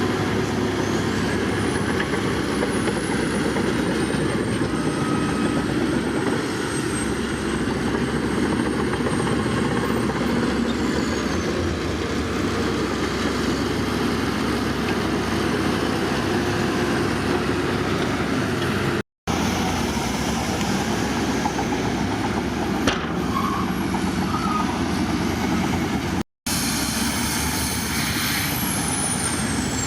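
Heavy diesel earthmoving machinery (bulldozer or dump truck) running steadily under load, with a faint high whine that rises and falls. The sound drops out to silence twice briefly, about two-thirds of the way through and again a few seconds later.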